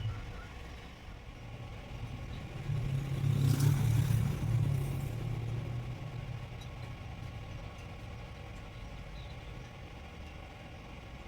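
A low engine hum that swells for a couple of seconds about three seconds in, then slowly fades, like a motor vehicle passing.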